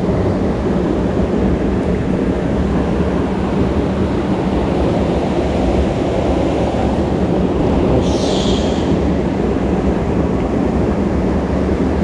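A mountain headwater stream rushing over and between boulders, a steady, full noise of white water heard close. A brief higher hiss comes about eight seconds in.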